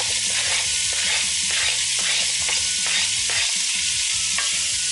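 Diced onion, celery and carrots sizzling as they hit hot oil and butter in an enameled cast iron pot. A wooden spoon scrapes and taps them off a silicone mat and against the pot, several times.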